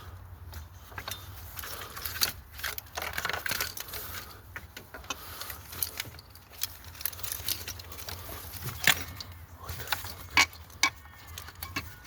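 Metal engine parts and hand tools clinking, knocking and scraping at irregular moments as components are worked loose in an engine bay, with a few sharper metallic clicks near the end. A low steady hum runs underneath.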